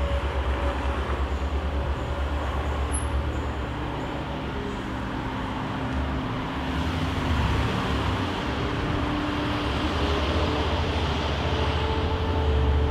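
City street traffic noise: a steady low engine rumble, with the hiss of passing vehicles building from about halfway through.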